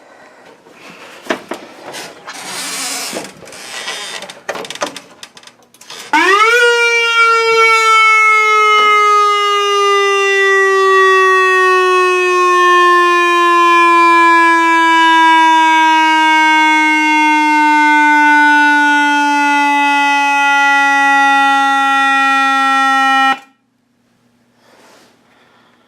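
Whelen ESC-864 electronic siren controller sounding through a single 100-watt speaker driver. After several seconds of rustling, a loud buzzy siren tone jumps up in pitch, glides slowly downward for about 17 seconds, then cuts off abruptly.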